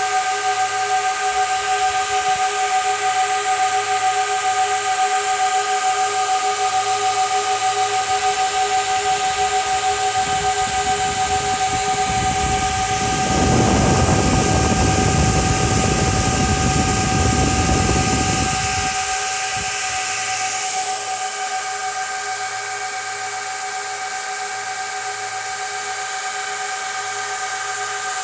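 IBM rack server's cooling fans running hard during boot, a steady rushing hiss with several constant whining tones. A low rumbling rush swells and fades in the middle, and about two thirds of the way through the hiss eases and the whole sound gets quieter as the fans slow.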